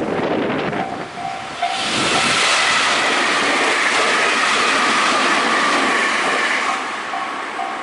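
An electric train passes at speed, a loud rushing of wheels and air with a whine that slides slowly down in pitch, building about two seconds in and fading near the end. A regular on-off ding continues underneath before the train and again near the end.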